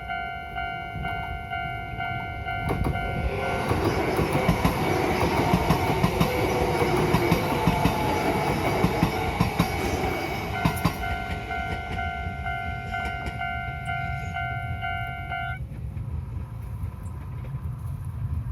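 Japanese railway level-crossing alarm ringing a steady, repeating electronic ding. A Kintetsu Yoshino Line train passes from about three to eleven seconds in, with loud running noise and many wheel clicks. The crossing bell stops a few seconds before the end.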